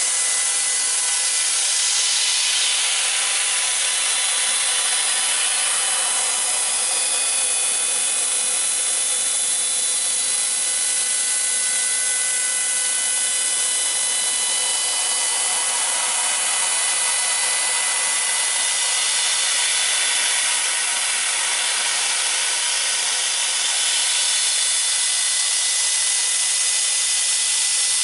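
CSB-150F fiber laser cutter cutting 1 mm SPCC cold-rolled steel sheet: a steady hiss of assist gas jetting from the cutting nozzle as it burns through the metal, with several steady high whining tones over it.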